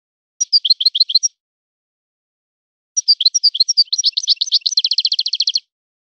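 Moroccan goldfinch singing: a short burst of quick twittering notes, then after a pause a longer phrase that ends in a fast, even trill.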